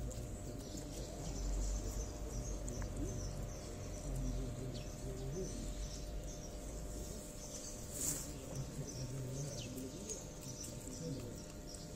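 Cats chewing and eating wet food from a plastic tub, with small birds chirping in the background and one sharp click about eight seconds in.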